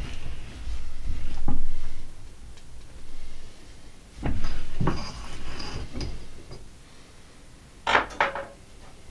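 Steel spring wire of a KP-120 trap spring clinking and knocking against an iron jig in a vise as its ends are bent by hand. Dull handling thumps come first, then a run of clinks, and a sharp ringing metal clank about eight seconds in.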